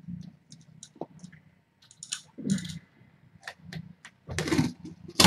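Irregular rustling and soft clicks of a fleece cat bed as the nursing kittens are shifted about in it, with a longer, louder rustle about four seconds in and a sharp knock at the very end.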